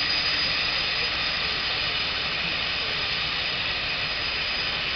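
Turboprop engines of a DHC-6 Twin Otter floatplane running at idle: a steady turbine hiss with a thin high whine over it.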